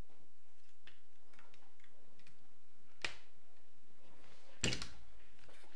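Small clicks and knocks of parts being fitted by hand on a submachine gun's railed handguard, likely the RL-1 hand stop going onto the rail. A sharper click comes about three seconds in, and a louder knock near the end.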